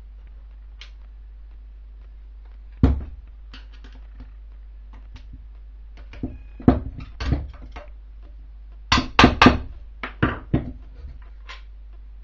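Metal parts of an NSU Max 250 gear-shift mechanism clinking and knocking against the aluminium gearbox housing as they are fitted by hand: a single knock about three seconds in, a few more around the middle, and a quick run of knocks near the end.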